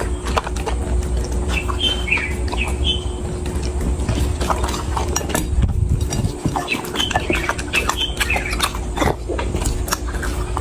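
Chocolate Labrador chewing and eating raw meat from a glass dish: wet chewing with many sharp clicks and a few short high squeaks.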